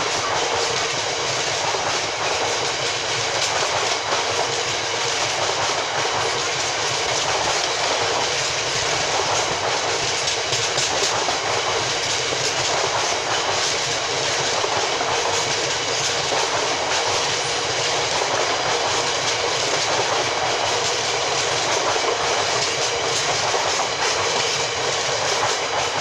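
Freight train of tank wagons rolling steadily past, wheels clattering over the rail joints and junction pointwork in a continuous loud rumble.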